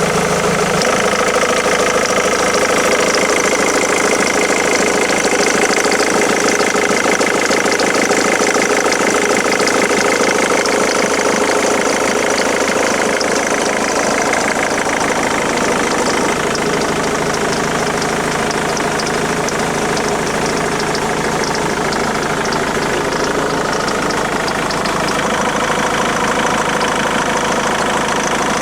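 Ford Mondeo Mk3 2.0 TDCi diesel engine idling steadily with a knocking, ticking rattle: the strange engine noise the owner suspects may be a failure.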